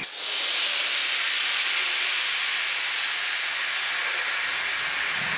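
Compressed air hissing out of a pneumatic ball-molding press. It starts suddenly and runs on steadily as the air is let out of the bladder-marking station before the marked bladder is removed.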